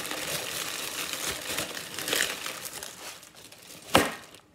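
Clear plastic bag and packaged candies crinkling as a hand rummages through them, fading out after about three seconds, then one sharp knock at about four seconds.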